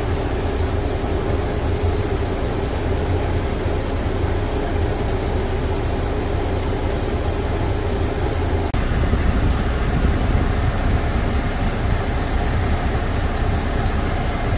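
International MaxxForce 13 inline-six diesel idling steadily at about 600 RPM, at normal idle now that the forced DPF regeneration has finished. There is a short dropout about nine seconds in.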